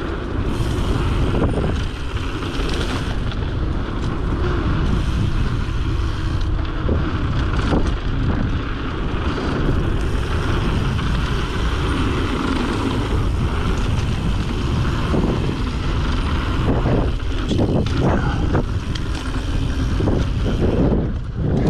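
Steady wind buffeting the microphone with a continuous low rumble, as on a camera that is moving fast.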